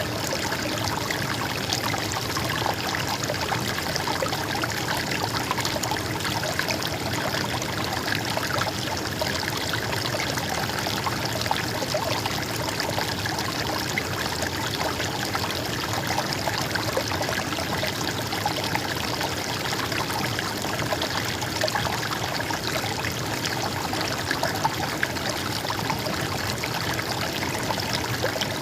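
Running stream water trickling and splashing steadily, an even rush with no pauses.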